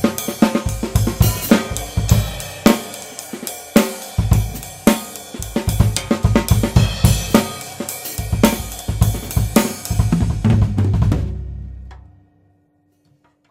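Tama Swingstar drum kit with Meinl cymbals played, picked up by a Blue Yeti USB microphone: bass drum, snare and hi-hat in a steady beat with cymbal crashes. The playing stops about eleven seconds in and rings away to near silence.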